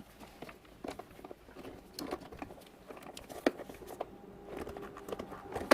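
Scattered small clicks and taps of plastic parts being handled and pried at while a Cuisinart drip coffee maker is taken apart, with a sharper click about three and a half seconds in.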